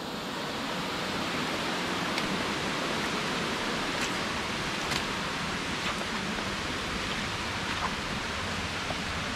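Steady rush of falling water from a nearby waterfall, an even hiss spread across low and high pitches, with a few faint clicks over it.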